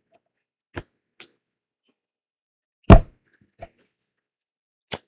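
Tarot cards and deck being handled on a table: a few light taps, then one loud smack about three seconds in, as cards are laid or slapped down.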